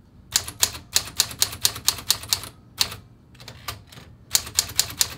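Smith Corona Sterling manual typewriter being typed on: quick runs of sharp key strikes, about five a second, with a short, sparser spell midway.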